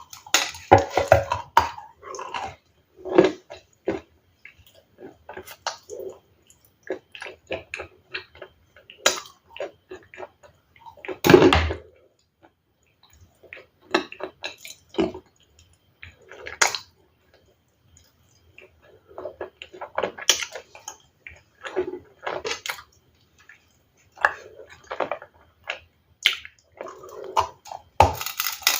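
Someone chewing and crunching ice in close-up, in irregular crunchy bites separated by short pauses, with one especially loud crunch about eleven seconds in.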